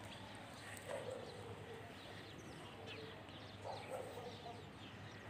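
Faint outdoor background with distant bird calls: a few short falling calls about one, three and four seconds in, over scattered faint chirps.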